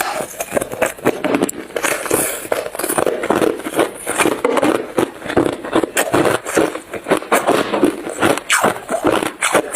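Hard clear ice being chewed and crunched up close. Dense sharp cracks and crackles come over a steady chewing rhythm of about two to three bites a second.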